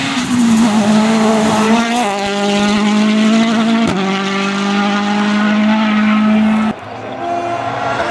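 Citroën DS3 WRC rally car's turbocharged four-cylinder engine running hard at high revs, its pitch stepping down twice, about two and four seconds in, as it shifts up. The sound drops away suddenly near the end.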